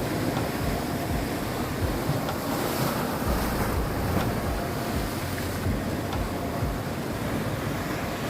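Sea waves surging and breaking against rocks, a steady wash with low rumbling surges, with some wind buffeting the microphone.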